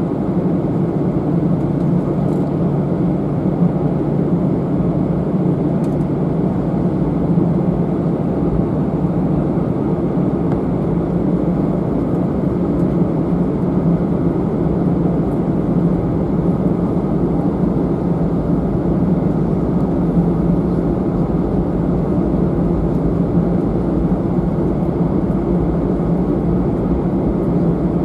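Airbus A319-111 cabin noise on the ground before takeoff: a steady hum and low drone from its CFM56 engines running at low power, with a rumble underneath.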